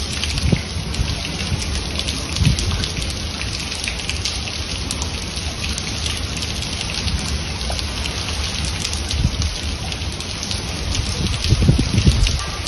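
Heavy rain falling steadily, a dense patter of drops over a low rumble. Near the end, gusts of wind buffet the microphone in low bursts.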